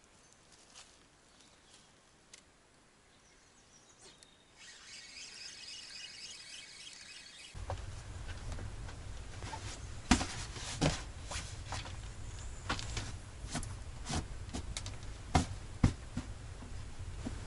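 Faint evening outdoor ambience, with a dense high-pitched chirping setting in about four seconds in. After a cut, a steady low hum runs under rustling, sharp clicks and a few louder knocks as a sleeping bag and bedding are handled and spread out on a bunk in the dugout.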